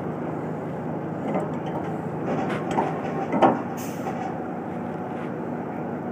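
Steady drone of a running engine, with a few short metallic knocks; the loudest comes about three and a half seconds in as the crane chain and shackle are handled.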